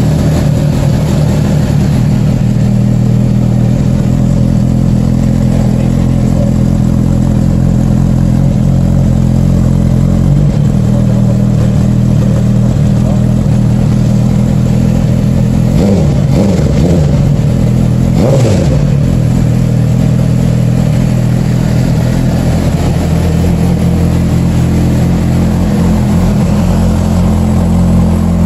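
2018 Suzuki GSX-R1000's inline-four engine running steadily near idle, with a brief change in pitch about two-thirds of the way through.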